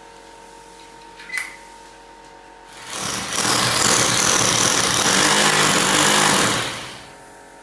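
Electric power drill running for about four seconds, starting and stopping with a quick ramp, with a rapid fine pulsing under a high whine; a single short click comes just before.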